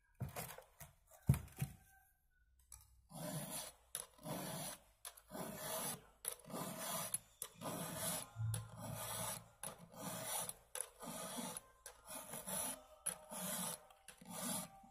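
Round chainsaw file stroked across the cutting teeth of a chainsaw chain to sharpen it: a steady run of filing strokes, about two a second, starting about three seconds in after a few light clicks.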